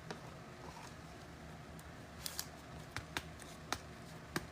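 Trading cards being handled: quiet rustling with a few short, light clicks and taps.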